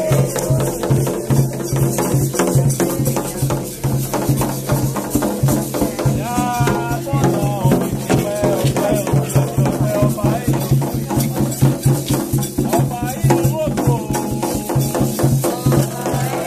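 Percussion music with a fast, even beat of rattles and drums. A voice comes in with short, wavering phrases about six seconds in and again later.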